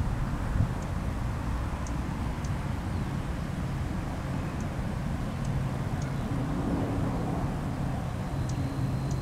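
Steady low outdoor rumble, with a few faint, short high ticks scattered through it. A thin, steady high whistle comes in near the end.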